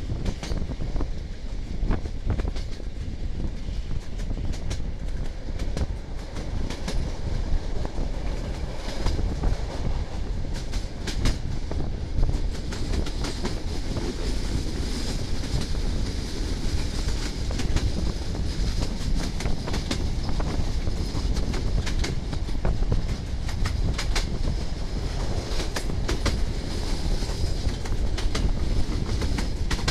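Passenger coaches running on jointed track, their wheels clattering in an irregular clickety-clack over the rail joints beneath a steady rumble. A faint high wheel squeal comes in about halfway through as the train rounds the curve.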